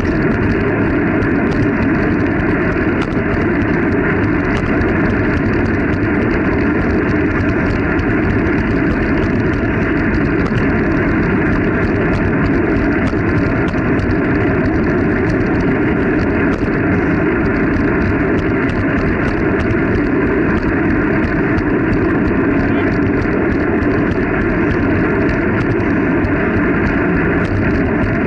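Steady, loud wind noise buffeting the camera's microphone while cycling at speed, a constant rumbling rush with no breaks.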